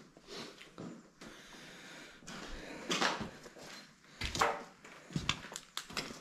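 Footsteps crunching and scraping over debris on a littered floor, with scattered clicks and knocks, a cluster of them near the end.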